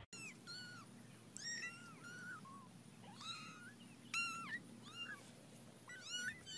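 Two young kittens mewing over and over: about a dozen short, high-pitched mews, some in quick pairs.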